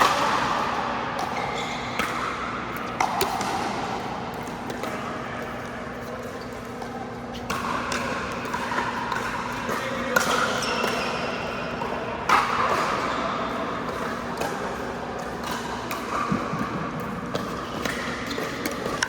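Pickleball rally on an indoor court: sharp pops of paddles striking the hollow plastic ball and the ball bouncing on the floor, at an irregular rhythm, mixed with short high squeaks.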